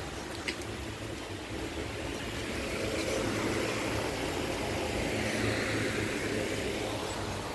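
Steady background noise, a low hum under a hiss, with a single light click about half a second in and a broad swell in the noise a little after the middle.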